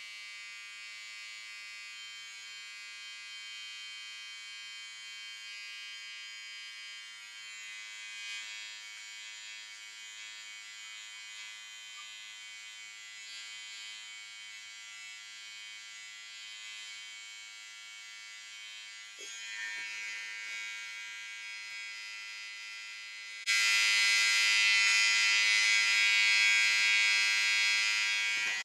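Remington electric brow trimmer running with a steady buzz as it trims an eyebrow. About 23 seconds in it suddenly gets louder and brighter, then cuts off.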